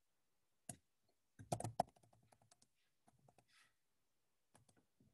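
Computer keyboard typing: a single keystroke, then a quick run of keystrokes about a second and a half in, followed by scattered lighter taps.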